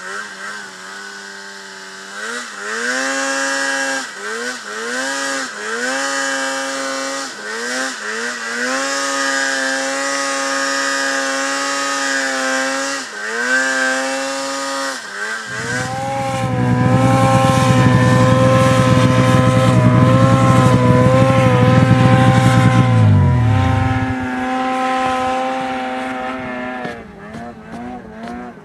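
Two-stroke mountain snowmobile engine revving through deep powder, its pitch climbing, holding and dropping again and again as the throttle is worked. About halfway through it becomes louder and holds steady at high revs for several seconds, then falls away near the end.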